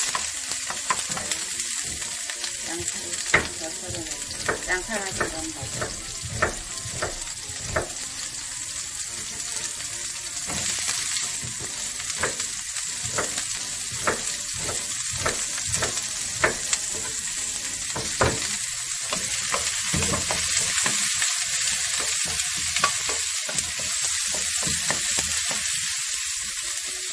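Sliced onions sizzling in hot oil in a nonstick frying pan, stirred with a wooden spatula that knocks and scrapes against the pan many times. The knocks come thick and fast at first and grow sparser toward the end while the sizzle carries on.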